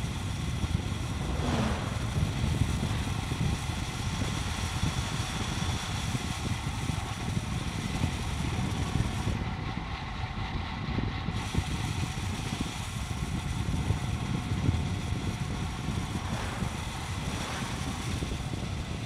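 Wind rushing and buffeting over the camera microphone on a fast road-bike descent, a steady loud rumble throughout.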